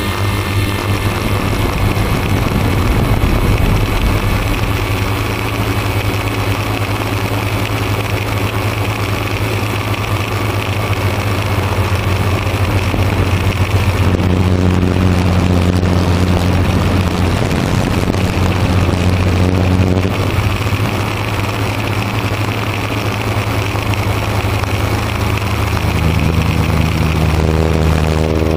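Multirotor drone's motors and propellers buzzing steadily, picked up by its onboard camera; the hum steps up and down in pitch a few times.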